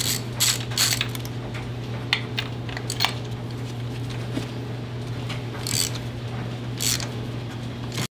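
Hand ratchet wrench clicking in quick strokes for about a second, then scattered metallic clicks and clinks of tools against the engine, over a steady low hum, while the spark plugs are being removed.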